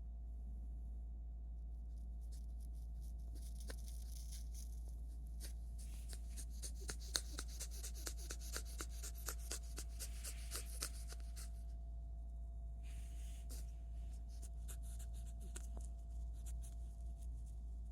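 Blue-headed pionus parrot wheezing in excitement: a raspy, hissing breath packed with rapid crackles. It comes in spells, the longest lasting several seconds, with a shorter one a little later.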